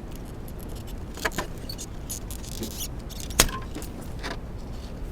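Small plastic clicks and handling rattles as the electrical connector is worked off an ignition coil, with one sharp click about three and a half seconds in.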